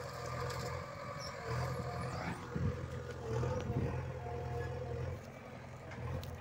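JCB backhoe loader's diesel engine running steadily, with a few brief rubbing knocks from a hand handling the phone. The engine sound eases off slightly about five seconds in.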